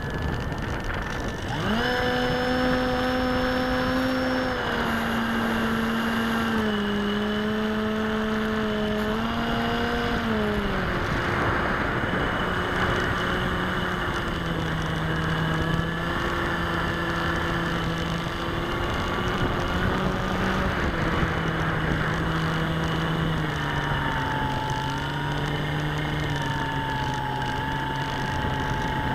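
Bixler model plane's electric motor and propeller whining as heard from the plane's own onboard camera, over a hiss of rushing air. The pitch shifts in steps with the throttle, a few times up and down, settling lower over the stretch.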